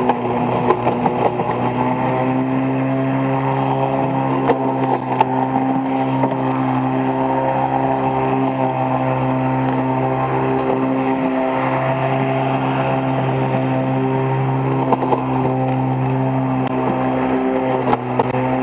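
Neuton CE6.2 36-volt cordless electric lawn mower running under load while mowing: a steady motor-and-blade hum with scattered ticks. The hum dips briefly about 11 and 17 seconds in.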